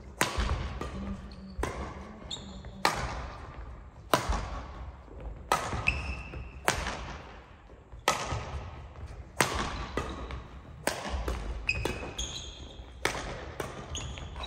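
Badminton rackets striking a shuttlecock back and forth in a doubles rally, a sharp crack roughly once a second that echoes around the large hall. A few short squeaks of sports shoes on the wooden court come in between the hits.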